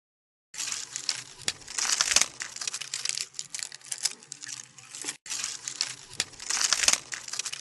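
Hand tool working wood: dry, crackly scraping strokes of a blade on wood, full of small sharp clicks, with a brief break about five seconds in.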